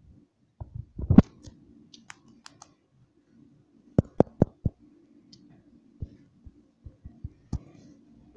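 Scattered sharp clicks and light knocks from a Siamese cat nosing about close to the microphone, with four in quick succession about four seconds in. A faint steady low hum runs underneath.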